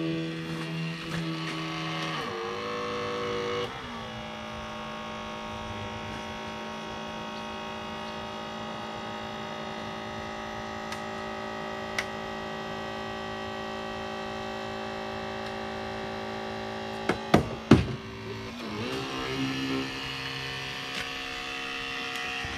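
Motor of extrication equipment running steadily with a hum. It drops in pitch about four seconds in and shifts again near the end. One sharp click comes partway through, and a few loud knocks come shortly before the pitch changes again.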